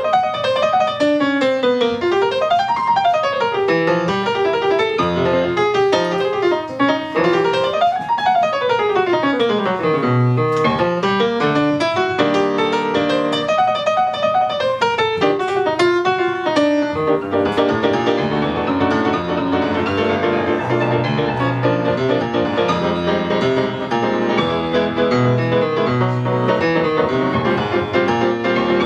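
Acoustic piano playing a jazz solo, with fast runs of notes sweeping up and down the keyboard. About two-thirds of the way through, a steady high hiss joins it, along with repeated low notes.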